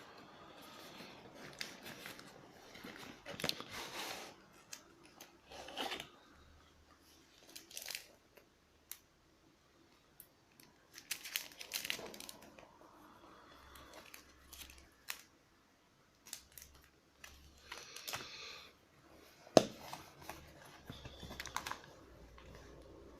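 Handling of sunglasses packaging: intermittent rustling, crinkling and tearing with scattered clicks and taps. One sharp click about three-quarters of the way through is the loudest.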